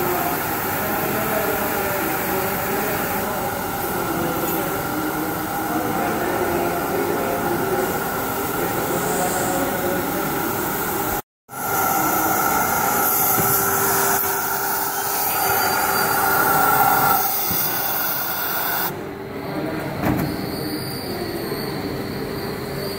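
Steam hissing from a hat-making steam plate as felt is shaped over it, over a steady factory machinery hum with several held tones. The sound breaks off briefly about halfway through and turns quieter near the end.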